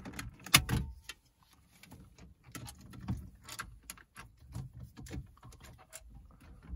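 Clicks and scraping of removal tools in the side slots of a Ford Focus Mk2's factory head unit, with plastic clicks and rattles as the unit is unclipped from the dashboard. A cluster of louder clicks comes about half a second in, followed by scattered lighter clicks and taps.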